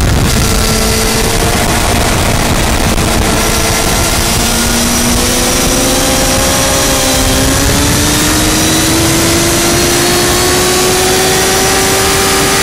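Yamaha R1 sportbike's inline-four engine under power at track speed, heard from a camera mounted low by the front fork, with a loud rush of wind over it. The engine note climbs slowly and steadily through the second half as the bike accelerates in one gear.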